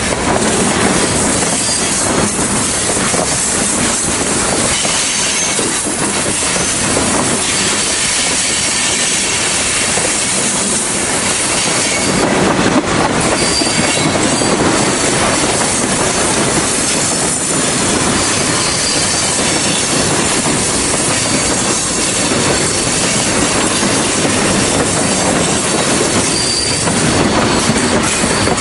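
Loaded freight cars rolling past at speed: a steady clatter of steel wheels on the rails, with a faint high wheel squeal that comes and goes.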